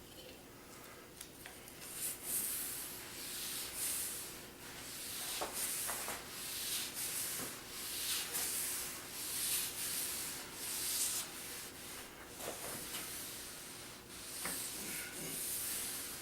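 Hand strokes rubbing sanding sealer into a wooden tabletop: a steady run of hissy back-and-forth scrubbing strokes, about one a second, starting about two seconds in, working the sealer into the wood to seal it.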